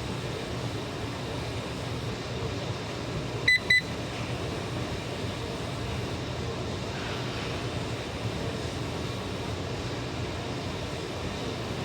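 Two short, high electronic beeps in quick succession, over a steady low hum of background noise.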